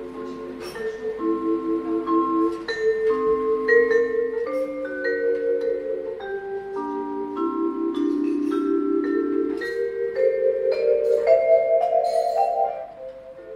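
Vibraphone played solo with mallets: held chords in the low register under a higher melody line, the notes ringing on with a pulsing vibrato. The playing falls quieter near the end.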